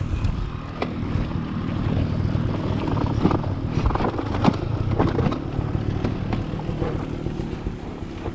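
Beta 300 RR two-stroke dirt bike engine opening up from a steady idle and running under load, with sharp knocks and clatter throughout as the bike goes over rough ground.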